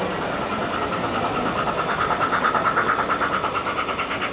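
HO-scale model steam locomotive's sound decoder chuffing in a quick, even rhythm as the train passes, swelling to its loudest a little past the middle and then easing off.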